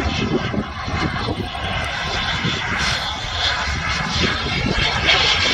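Radio-controlled F-86 Sabre model jet passing overhead, its jet engine a steady rushing sound that dips slightly in the middle and swells again near the end, with wind rumble on the microphone.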